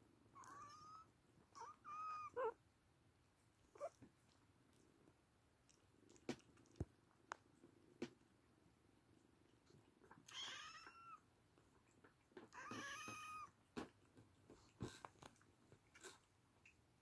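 Oriental kittens meowing: a few short, high meows in the first two and a half seconds, then two longer meows about ten and thirteen seconds in, with faint scattered clicks between.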